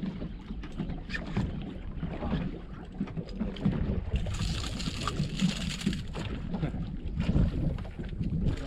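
Wind and water noise aboard a small fishing boat at sea, over a steady low rumble. About four seconds in a hissing rush rises for roughly two seconds, then fades.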